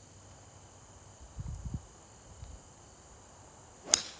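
A 3 hybrid golf club striking the ball once near the end, a single sharp crack, over a steady high chirring of insects. A few low thuds come about a second in.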